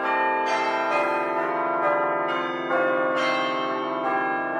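Church bells ringing a peal: a new strike about every half second, each ringing on and overlapping the next.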